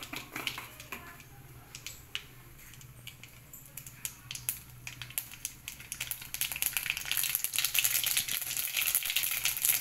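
Mustard seeds popping and crackling in hot oil in a pan as they are tempered: scattered single pops at first, building from about six seconds in to a dense, louder spluttering as the seeds burst.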